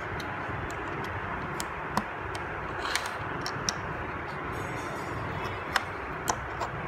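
Plastic Lego bricks and plates being handled and pressed together, giving a few scattered sharp clicks over a steady background hiss. The loudest click comes about two thirds of the way through.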